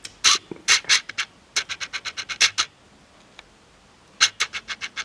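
Quick scratching strokes close to the microphone, in fast runs of several a second, pausing for about a second and a half before starting again near the end.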